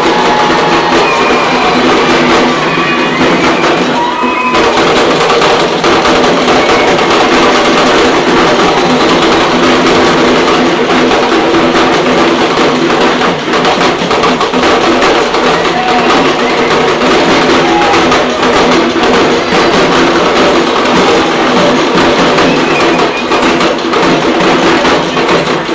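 A group of parai, Tamil frame drums, beaten with sticks in a dense, continuous rhythm with sharp slaps and little deep bass.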